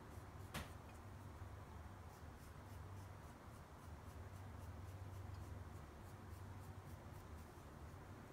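Faint, repeated scratching of a hacksaw blade's teeth scraping a leather-hard clay teapot spout to square it up for fitting. There is a single click about half a second in, and a low steady hum beneath.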